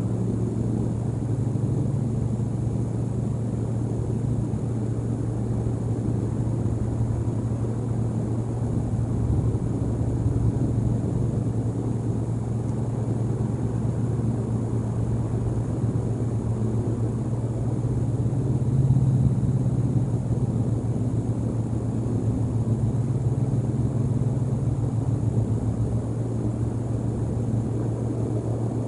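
Steady low rumble with no break, swelling briefly past the middle.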